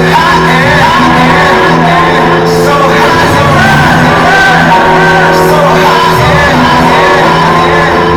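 Loud hip-hop dance music playing over a sound system, with a crowd shouting and whooping over it.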